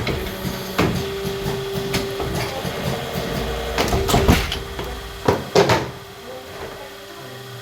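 Workshop machinery running with a steady hum, over which come irregular knocks and clattering, the sharpest around four and five and a half seconds in.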